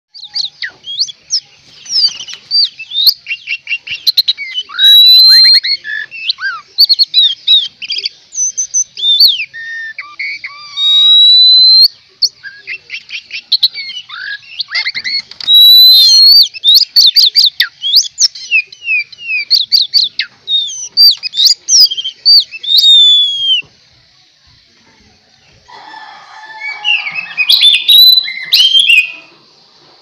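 Oriental magpie-robin (kacer) in full song: a loud, fast, varied run of clear whistles, chirps and quick rising and falling sweeps, used as a lure song to draw other magpie-robins. The song breaks off briefly about three-quarters of the way through, then comes back as a denser, lower, scratchier burst near the end.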